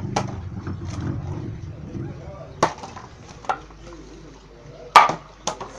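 A plastic bottle being flipped and knocking onto a hard floor: several short sharp knocks, the loudest about five seconds in.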